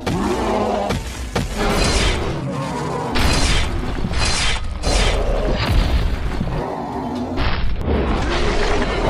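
Cartoon fight sound effects: a string of booms and crashing impacts, one after another, over background music.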